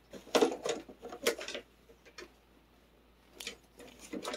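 A few short scratchy rustles and light taps, clustered in the first second and a half and again near the end, with a quiet stretch in between.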